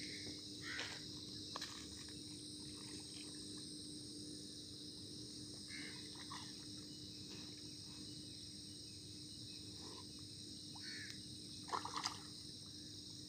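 Steady, high-pitched insect chorus of crickets, with a few faint short sounds, the most distinct a brief cluster near the end.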